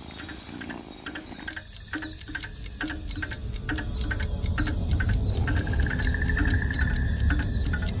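Night chorus of insects in a tropical forest: fast, evenly repeated high chirping and a steady high trill. A short low call repeats about twice a second, and a low rumble builds from about three seconds in.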